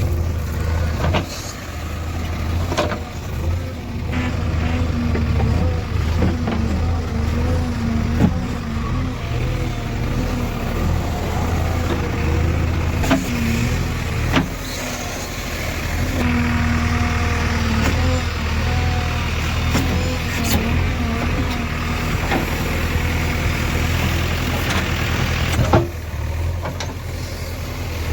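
JCB 3DX backhoe loader's diesel engine running steadily as the machine travels, with occasional sharp clanks and rattles.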